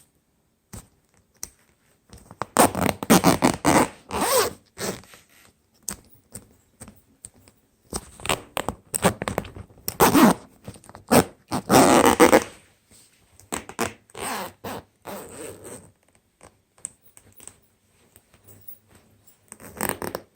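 Zipper on a case being worked back and forth in short, irregular pulls with clicks and scrapes. The slider is catching at a spot where it gets stuck.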